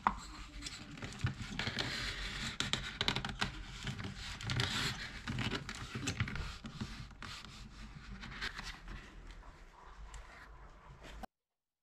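Leather being rubbed with a wooden tool and then handled and flexed, a dense scratching and scraping with many small clicks. The sound cuts off suddenly near the end.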